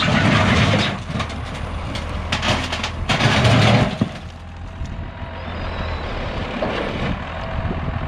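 A farm tractor's engine runs steadily while its front-loader bucket scrapes and crunches into broken concrete slab. The loud grinding comes in two bursts, one at the start and one about three seconds in, then only the engine is left.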